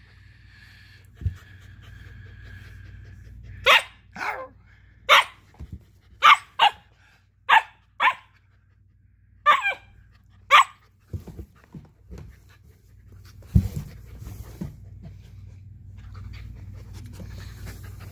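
Husky puppy barking: about nine short, high yaps between roughly four and eleven seconds in, followed by a few low knocks and scuffs.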